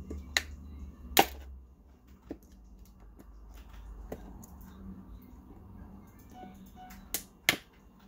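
Sharp clicks and knocks from a hose clamp and the plastic housing being handled while the clamp is worked onto a tube inside a Black & Decker drip coffee maker. The loudest click comes about a second in, and two more come close together near the end.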